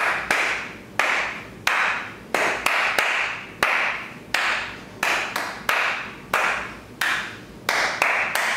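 Hand claps beating out a repeating rhythm, the pattern of the words "chips, coffee, milk, rice": one clap, two quick claps, then two more, over and over. Each clap has a short ringing tail.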